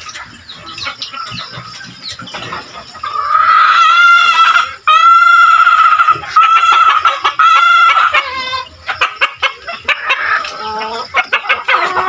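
Rooster crowing at length, a long drawn-out crow from about three seconds in, broken once and carrying on until about nine seconds in. Chickens cluck around it, with short clicking and scratching sounds toward the end.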